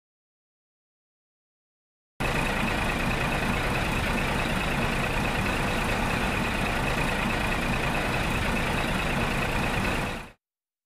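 Toy tractor pulling a loaded trailer, with a steady engine-like running sound that starts abruptly a couple of seconds in after silence and cuts off shortly before the end.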